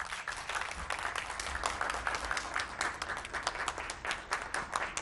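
Applause from a small group of people: many hand claps close together, steady throughout.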